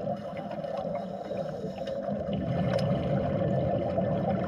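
Steady, muffled water noise as heard underwater, with no clear rhythm or pitch.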